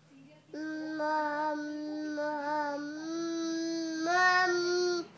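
A toddler's long, drawn-out angry whine, a held voice at a fairly steady pitch that starts about half a second in. It steps up in pitch and grows louder about four seconds in, then breaks off near the end.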